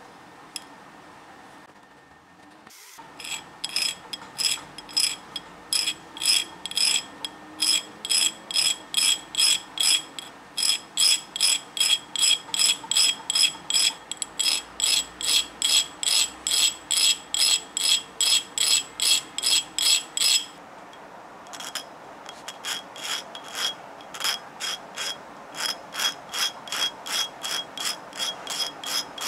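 Steel wire dart tip being sharpened by hand on a flat abrasive grinding wheel: rhythmic scraping strokes, about two a second, each with a thin high metallic ring. It starts about three seconds in, pauses briefly around the twenty-second mark, then resumes a little softer.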